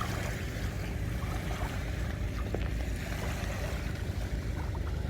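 Sea waves washing onto a beach, a continuous steady noise carrying a strong low rumble.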